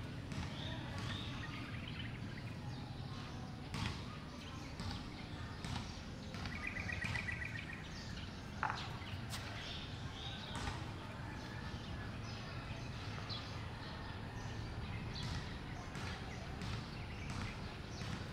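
Outdoor ambience: a steady low rumble with birds calling, including a short rapid trill about seven seconds in, and scattered faint clicks.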